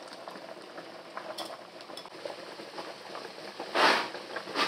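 Shrimp sizzling and crackling in hot basil olive oil in a frying pan, with a brief louder burst of sizzle near the end.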